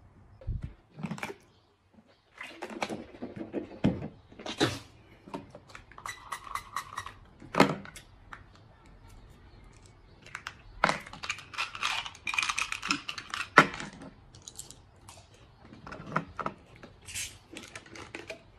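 Plastic bottles and small blister packets being handled: scattered clicks, taps and crinkles at an uneven pace, busiest about two thirds of the way through.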